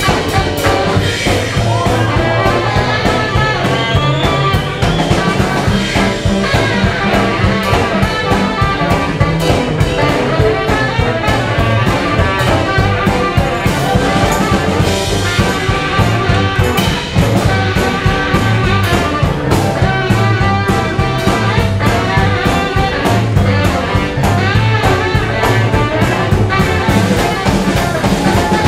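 Tenor saxophone solo over a jump-blues band, with the drum kit keeping a steady beat under it.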